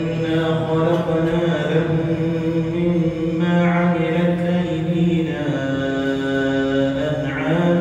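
A single male voice chanting in Arabic in long, drawn-out held notes, as in a mosque's call to prayer or Quran recitation. The pitch steps down about five and a half seconds in and rises again near the end.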